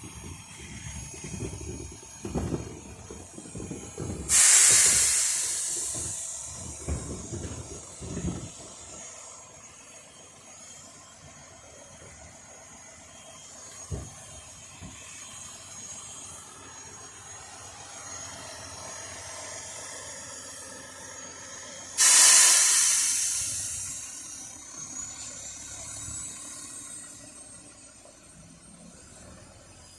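Two sudden loud hissing blasts of released compressed air, each fading away over about two seconds, the second coming about eighteen seconds after the first. Low rumbling and knocking from heavy machinery run under the first part and die down after about nine seconds, with one sharp knock midway.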